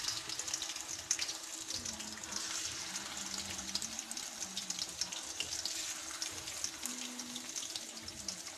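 Marinated fish pieces sizzling in hot oil in an iron kadai, a steady dense crackle of spitting oil.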